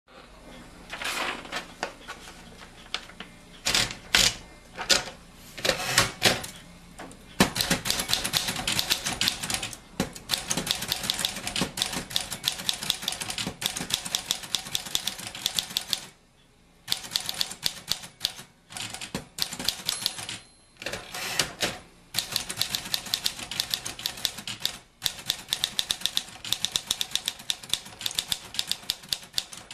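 Manual portable typewriter being typed on: quick runs of keystrokes, the typebars clacking against the platen, broken by short pauses between bursts.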